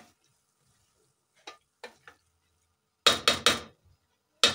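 A wooden spoon stirring thick githeri in an aluminium sufuria, with a few faint knocks against the pot. It is then rapped sharply against the pot three times in quick succession, and once more about a second later.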